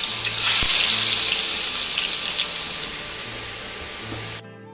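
Chopped onions sizzling in very hot oil in a steel kadhai, the hiss slowly easing. Near the end it cuts off suddenly and soft guitar music takes over.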